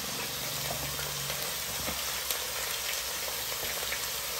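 Steady sizzling of hot sesame oil in the pan where mustard seeds, urad dal, green chillies and onion are frying, as chopped raw mango goes in; a light tap a little over two seconds in.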